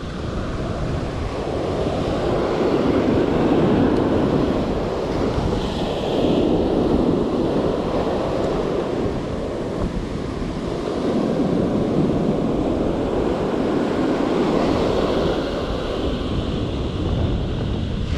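Ocean surf breaking and washing up the sand, swelling and fading in several rushes a few seconds apart, with wind buffeting the microphone.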